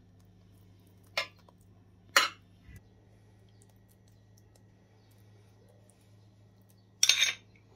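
Metal spoon clinking against the sauce bowl three times: twice in the first few seconds and once, a little longer, near the end. A faint steady low hum lies underneath.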